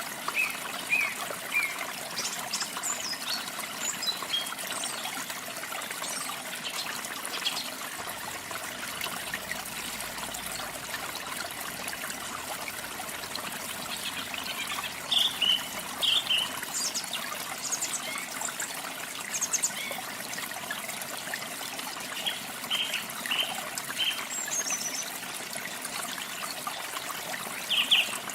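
Running water trickling and splashing steadily, with small birds chirping in short high calls scattered over it, in brief clusters a few seconds apart.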